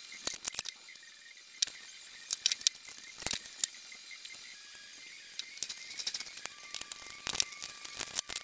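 Scattered metallic clicks, clinks and light knocks as a metal pulley sheave and small hand tools are handled on a workbench.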